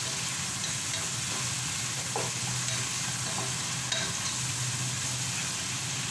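Sliced onions sizzling in hot oil in a pot, stirred with a wooden spatula that knocks and scrapes against the pot now and then. A low steady hum runs underneath.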